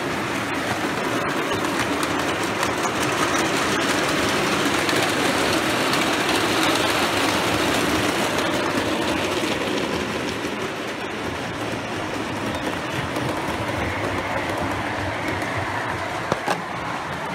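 O gauge model trains running on the layout's track: a Dapol GWR 1420 pulling a long rake of open wagons, then GWR 2285 with its coaches. The wheels make a steady rolling noise on the rails with scattered clicks, loudest midway, and two sharp clicks near the end.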